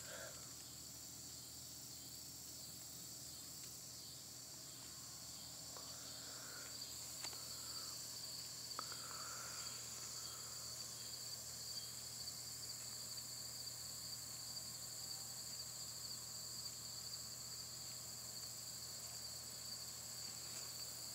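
Faint, steady chorus of insects chirping, with two high-pitched trills layered together. A few short, faint chirps come in between about six and ten seconds in.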